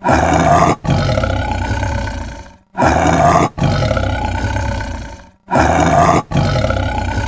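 Tiger roaring: the same roar heard three times, each a short loud burst followed by a longer call that fades out.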